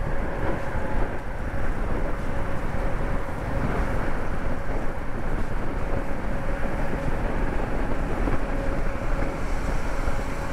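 Motorcycle riding at highway speed: steady wind rush over the microphone mixed with engine and road noise, with a faint steady hum.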